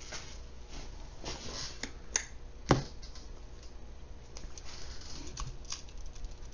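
Small clicks, taps and rustles of a Sony A7II mirrorless camera body and a Tamron 28-75mm zoom lens being handled, with one sharper click a little under three seconds in.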